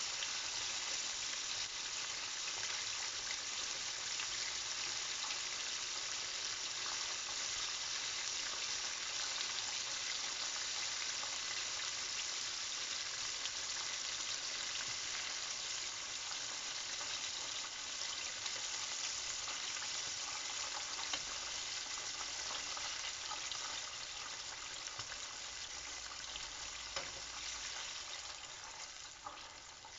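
Battered chicken pieces deep-frying in hot oil in a pan: a steady sizzle. It grows somewhat quieter over the last few seconds, with a couple of faint clicks.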